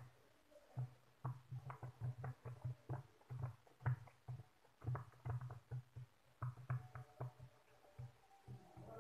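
Silicone pop-it fidget toy having its bubbles pressed by fingers: many soft pops in quick, uneven runs with brief pauses between them.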